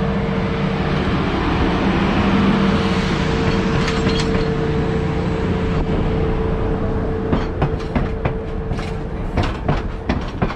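Diesel-hauled passenger train rolling slowly into the station: a steady engine hum with a held tone, then a string of sharp clicks from the wheels over rail joints in the second half.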